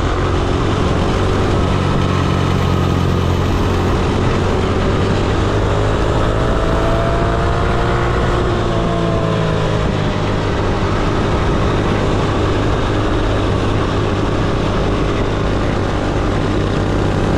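Single-cylinder minibike engine running steadily under way, its pitch gently rising and falling near the middle as the throttle changes.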